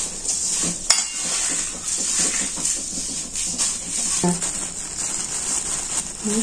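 Hands stirring puffed rice in a steel plate: a light rustle of grains with small clinks against the metal, and a sharp click about a second in.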